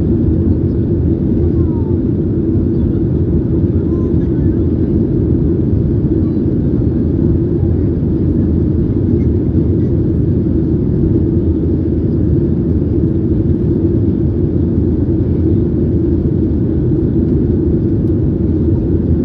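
Steady low rumble of a Boeing 737-800's CFM56 jet engines and airflow, heard inside the passenger cabin from a window seat in flight.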